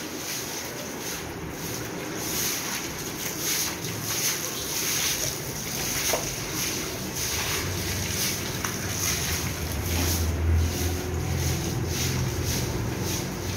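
Broom scrubbing a wet tiled floor in repeated swishing strokes, with water sloshing. A low rumble joins about halfway through.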